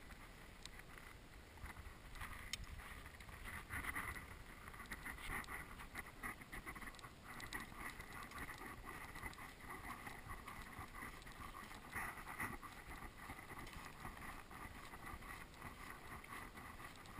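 Wind rumbling on a GoPro's microphone, with irregular crunching and rustling from walking over sand and storm debris.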